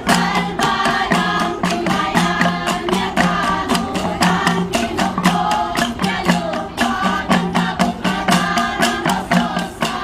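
Kalinga gangsa (flat bronze gongs) ensemble playing a fast, even interlocking beat of several strikes a second, with group singing over it.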